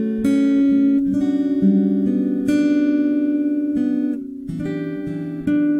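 Solo acoustic guitar with a capo, strummed and fingerpicked chords each left to ring, dropping away briefly about four seconds in.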